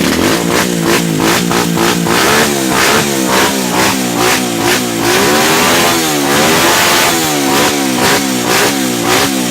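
AKT XM 200 motorcycle engine revved over and over through a GPR 2.0 full-system aftermarket exhaust, the pitch jumping up and falling back in quick throttle blips, with a few longer, slower sweeps around the middle.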